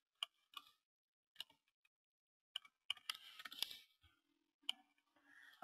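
Scattered clicks of a computer keyboard and mouse: a few single clicks, a short run of key taps about three seconds in, then one more click.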